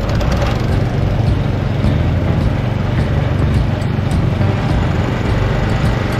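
Motor-driven sugarcane juice crushing machine running, a loud steady mechanical drone.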